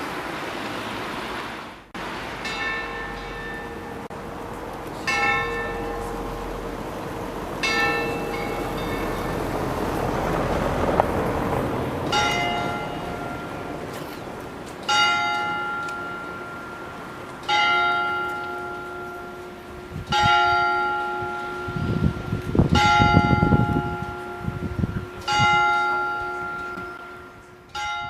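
Waldheim town hall clock bell striking slowly, about ten strokes roughly two and a half seconds apart, each left to ring out. It follows the last ringing of a church bell that cuts off about two seconds in. A low rumble passes underneath near the end.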